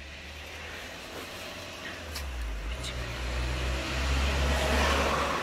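A car passing on the street, its engine and tyre noise growing steadily louder and loudest near the end.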